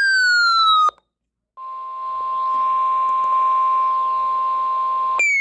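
NOAA Weather Radio alert tones: a falling electronic sweep ends about a second in, and after a short gap the steady 1050 Hz warning alarm tone sounds over light radio hiss. Another falling sweep begins near the end.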